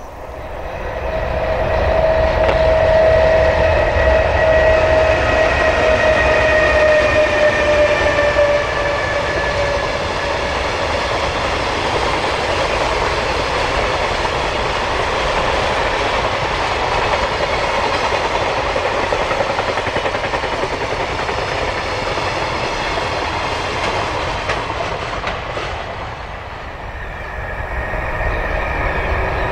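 An EH500 electric locomotive passes at speed with a freight train. A steady whine, with a lower and a higher note that both slide slowly lower, sounds for the first eight seconds or so, then gives way to the continuous rumble and clatter of the wagons over the rails.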